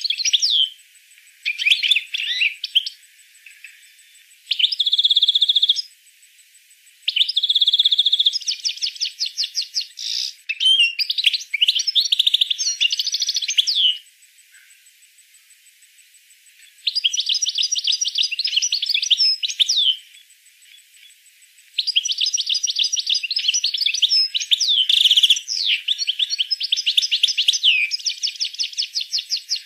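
A songbird singing in phrases of fast trills and rolling runs of rapidly repeated notes, each phrase a few seconds long, with short pauses between them.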